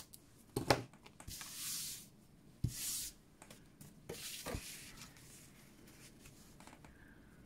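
A snip of small craft scissors through cardstock, then cardstock sliding and rustling as it is handled and pressed down, with a few light knocks.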